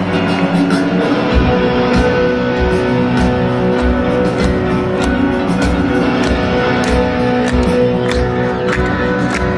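Live rock band playing a slow power ballad, heard from among the stadium crowd: sustained guitar and keyboard chords, with the drums coming in on steady heavy beats about a second and a half in.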